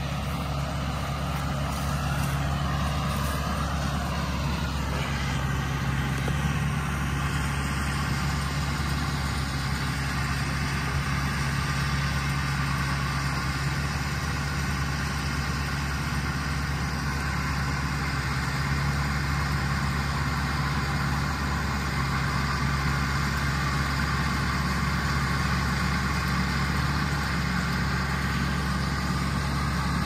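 John Deere 5100M tractor's four-cylinder diesel engine running steadily while pulling and powering a John Deere 450M round baler through a hay windrow. It grows slightly louder toward the end as the tractor comes closer.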